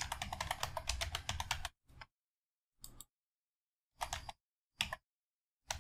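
Typing on a computer keyboard: a fast run of keystrokes for about the first second and a half, then a few short, separate bursts of clicks with dead silence between them, and typing starts again at the very end.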